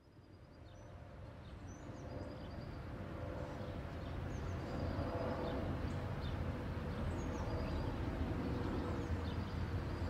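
Outdoor beach ambience fading in: a steady rush of surf with low wind rumble on the microphone, and short high chirps recurring about once a second.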